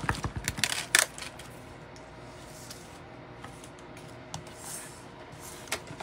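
Plastic ink pad and stamp being handled on a desk: a quick run of clicks and taps in the first second, then faint room tone with an occasional soft click.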